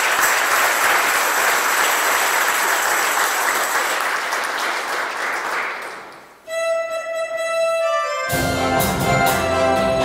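Congregation applauding, fading out about six seconds in. A held note on an instrument follows, and a band with bass and percussion comes in about two seconds later.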